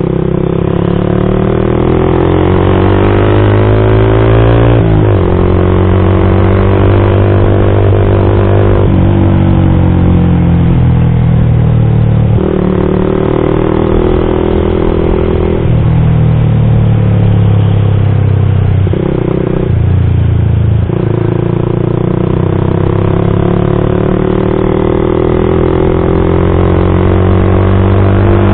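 Yamaha MX King 150's single-cylinder four-stroke engine running through an aftermarket custom exhaust while ridden hard through the gears. The engine pitch climbs, drops at each gear change, and climbs again, about half a dozen times.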